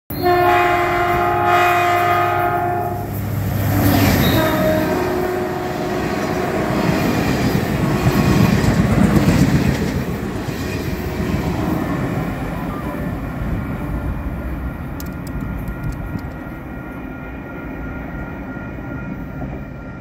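Caltrain commuter train's multi-tone horn sounding one long blast of about three seconds, then a shorter blast a second later. The train then rushes past close by, its rumble and wheel clatter loudest about halfway through and fading away after that.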